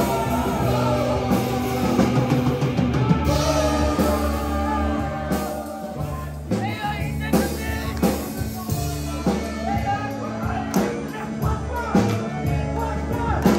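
Live rock band playing: a male voice singing over electric guitars, bass and a drum kit. The drum beats stand out in the second half.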